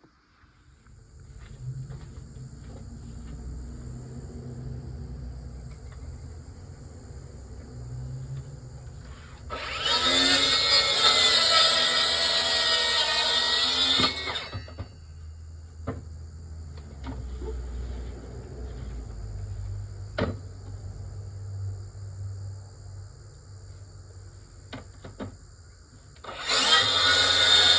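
A power drill runs in two bursts, one of about four seconds starting about a third of the way in and another near the end. Between them come a few light knocks and clicks over a low hum.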